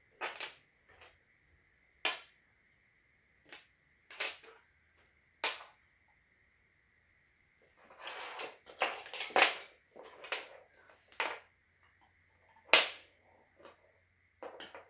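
Wooden Zig & Go track pieces being handled and set down on a wooden floor: scattered light knocks and clicks, a denser clatter of pieces about eight seconds in, and one sharp click near the end.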